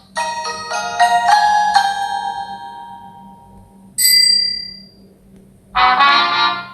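Samsung Galaxy S25 Plus notification tones played slowed down: a quick run of mallet-like chime notes that ring out and fade, a single bright bell-like ping about four seconds in, then another short run of chime notes starting near the end.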